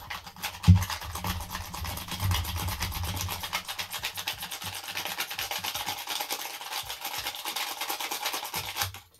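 Metal keys scraped rapidly back and forth across a rugged phone's screen in a scratch test, a fast rasping that keeps going and stops just before the end. A low bump sounds just under a second in.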